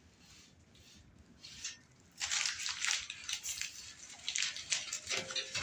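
Homemade katana blade slicing repeatedly through paper, a quick irregular string of crisp cuts and rustles starting about two seconds in.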